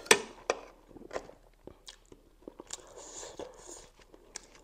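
Close-miked mouth sounds of a person eating spicy instant noodles: wet chewing, noodle slurping and sharp lip smacks, the loudest smack just after the start, with a soft hiss about three seconds in.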